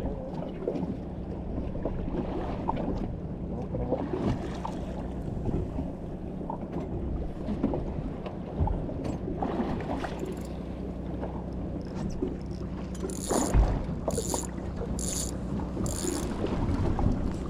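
Boat engine running with a steady low hum, under wind and water noise. From about three-quarters of the way in, short high-pitched bursts come about once a second.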